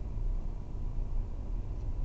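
Low, steady rumble of a car's engine and tyres heard inside the cabin, recorded by a dashcam as the car rolls slowly, with a faint steady tone above it.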